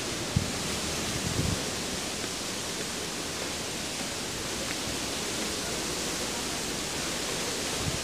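A steady hiss of outdoor background noise, with a few low thumps in the first two seconds.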